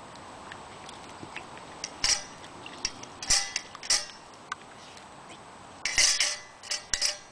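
Stainless steel dog bowls clinking and scraping in their wire stand as a Samoyed puppy noses and licks at her raw food. A few separate clinks come in the first four seconds, then a quicker rattle of them near the end, with a faint metallic ring.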